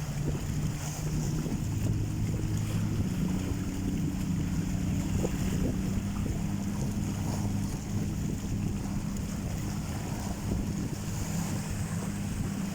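Wind buffeting the microphone over the wash of sea surf, with a steady low hum underneath.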